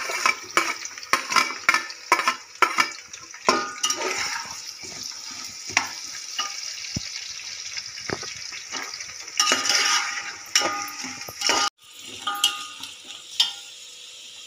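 Sliced shallots and whole green chillies sizzling in hot oil and ghee in a large aluminium pot, stirred with a perforated metal skimmer ladle that clinks and scrapes against the pot. The sound briefly cuts out near the end, then a quieter sizzle carries on.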